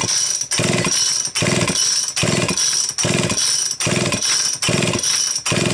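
Homelite Super XL-925 chainsaw's recoil starter pulled over and over, about eight quick pulls, each spinning the two-stroke engine through its compression stroke against a compression gauge in the spark-plug hole, so the engine does not fire. The saw is low on compression, reading only 56 pounds partly warmed up.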